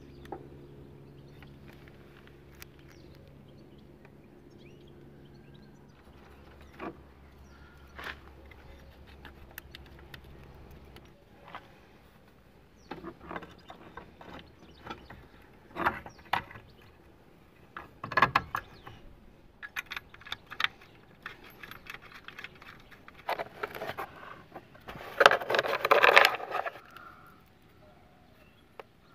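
Small metal parts being handled at a scooter engine: scattered clicks and clinks, building to a loud jingling rattle of loose steel bolts shaken together about two seconds before the end.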